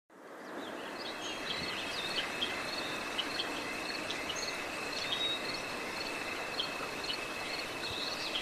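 Outdoor nature ambience fading in over the first half second: a steady high insect trill under a hiss, with scattered short bird chirps above it.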